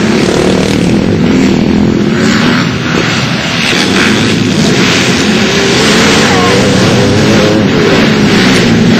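Pit bike engines running and revving as the bikes ride the dirt track, with one engine rising and falling in pitch a little past the middle.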